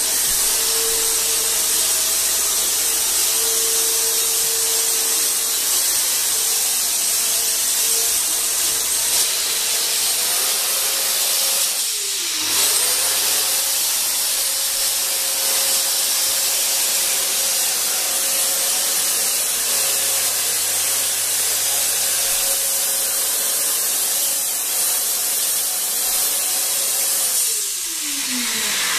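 Corded electric handheld ULV cold fogger running: a steady motor whine under the hiss of the disinfectant mist. About twelve seconds in the motor briefly slows and spins back up, and near the end it winds down.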